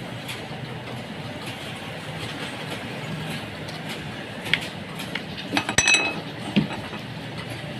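A few sharp metallic clinks and taps against steady background noise, clustered in the second half, one of them ringing briefly like struck metal.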